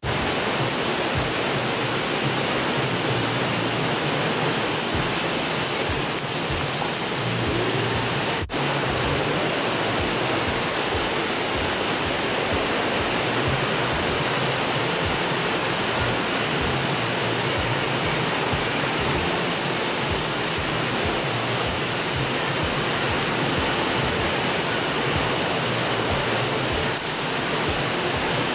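Steady, loud rush of water pumped over an indoor surf machine's wave surface, with one brief break about eight seconds in.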